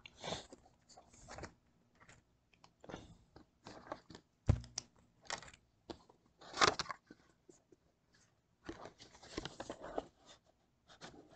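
Cardboard mailer box being opened and handled by hand: irregular scrapes, crinkles and rustles of the flaps, with a sharp knock about four and a half seconds in.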